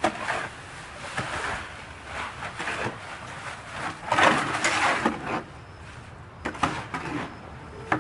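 Concrete being mixed by hand: a tool scraping and chopping through the wet mix in irregular strokes, the loudest a little past the middle.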